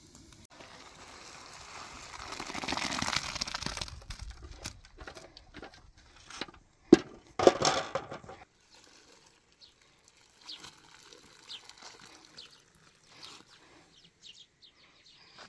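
Outdoor cooking sounds: a swelling rush of noise for a few seconds, then two sharp knocks of metal cookware about a second apart, the loudest sounds here. After that it goes quieter, with faint small clicks of handling and a few faint high chirps.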